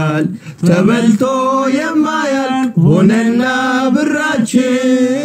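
Men singing a cappella in Amharic: a plaintive, sung plea in drawn-out phrases with short breaks between them.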